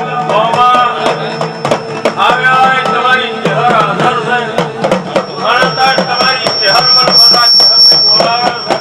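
A man sings a Gujarati devotional song through a microphone and PA, over drum beats and steady held tones underneath.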